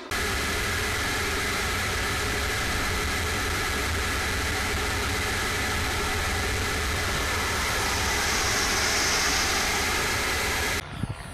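Steady roar of a radio-controlled turbine jet in flight, heard from a camera on board the model: engine noise and rushing air with a steady high whine. It cuts in suddenly and cuts off abruptly near the end.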